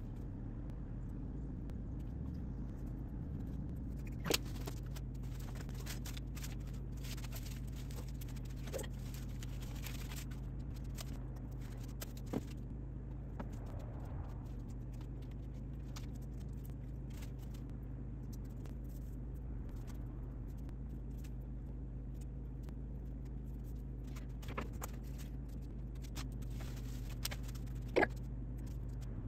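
A steady low hum, with a few scattered light clicks and knocks from hand work applying chinking to a log wall.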